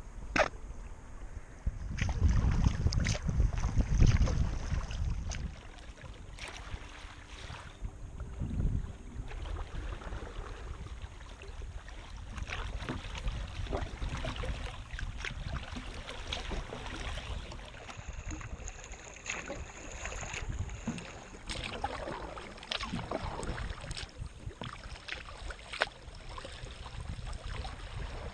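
Kayak paddling on calm water: irregular paddle strokes splashing and water dripping off the blade close to the boat. A low buffeting on the microphone is the loudest sound during the first few seconds.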